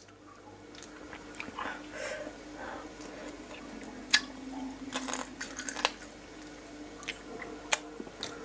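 Close-miked wet eating sounds of raw blue swimming crab pickled in fish sauce: the meat sucked from the shell and chewed, with several sharp clicks and crunches.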